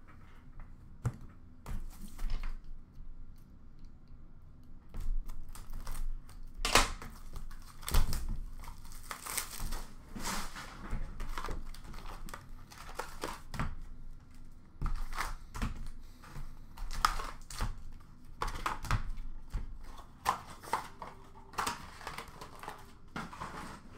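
Plastic wrap crinkling and tearing as a box of hockey cards is cut open with a knife. Card packs rustle and tap as they are lifted out and stacked on a glass counter. The sounds are irregular, with scattered sharp clicks.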